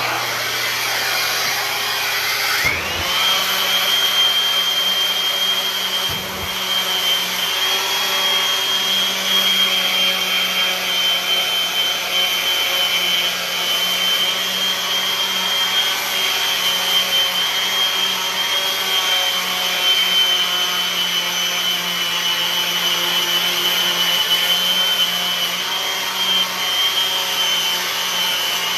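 Random orbital sander spinning up and then running steadily against the carved wooden neck of a neck-through bass, its whine rising for about three seconds and then holding one high pitch.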